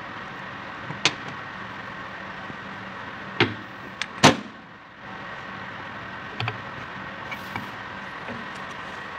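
A few short, sharp metal knocks and clinks, the loudest about four seconds in, from a hydraulic pump's removed camshaft and its parts being handled. Under them runs a steady mechanical hum.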